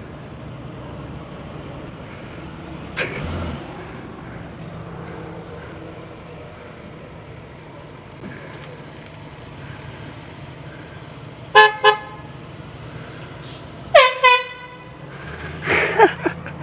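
Handheld air horn blasting: two short blasts about two-thirds of the way through, then a louder, longer blast a couple of seconds later whose pitch drops as it starts.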